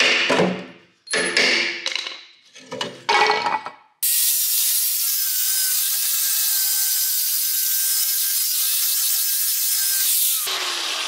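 A few ringing hammer blows on a steel chisel against rusted castor-mounting bolts. About four seconds in, an angle grinder starts cutting through the seized metal with a steady hissing whine. Near the end it comes off the cut and winds down with a falling whine.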